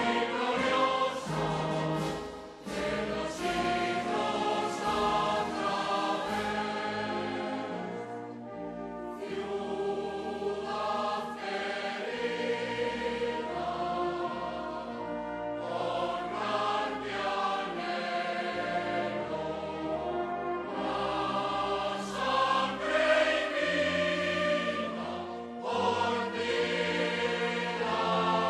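Choral music with orchestra, sung voices held over a full accompaniment.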